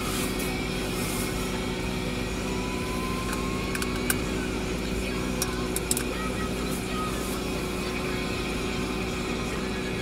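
A parked car idling, heard from inside the cabin as a steady hum, with a few light clicks around the middle.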